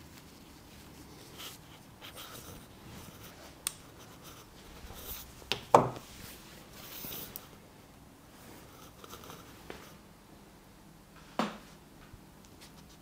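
Barber's handling sounds during a straight-razor shave: faint scraping and rustling, broken by a few sharp knocks, the loudest about six seconds in and another near the end.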